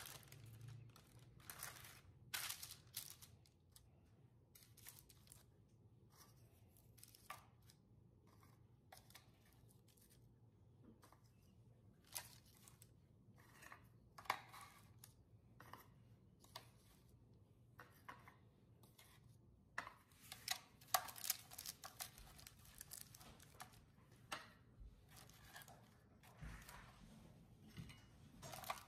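Faint, irregular rustling and crinkling of parchment paper being pressed into a metal baking pan, with light taps and crackles as crisp Lotus biscuits are set down on the paper one by one.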